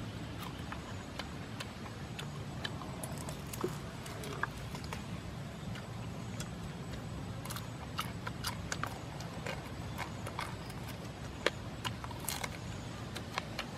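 Irregular wet clicks and smacks of grilled pig meat being torn by hand and chewed, over steady low background noise.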